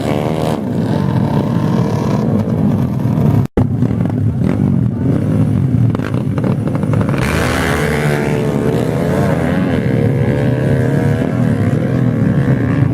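Several motorbike engines revving and passing, their pitch rising and falling. The sound cuts out for an instant about three and a half seconds in.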